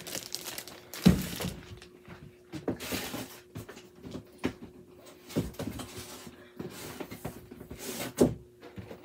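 Boxed toys and packaging being handled and rummaged through: scattered rustling and bumps, with a sharp knock about a second in and another near the end, over a faint steady hum.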